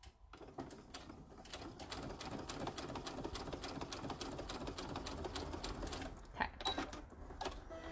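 Electric sewing machine stitching a seam, a fast, even run of needle strokes that builds up over the first couple of seconds, holds steady, and stops about six seconds in, followed by a few light clicks.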